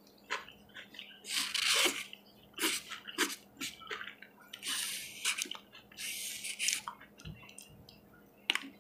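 Close-up eating sounds: wet chewing with many small lip-smacking clicks, and a few short hissing sounds in between.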